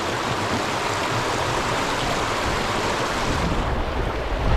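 Stream water rushing steadily, with a low rumble coming in near the end.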